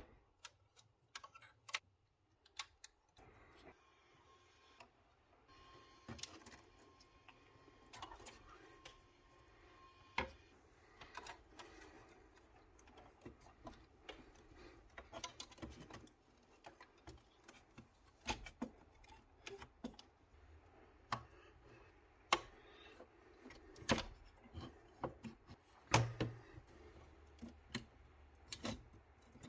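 Irregular light clicks and taps of computer parts and hardware being handled while a motherboard is swapped out of a small PC build.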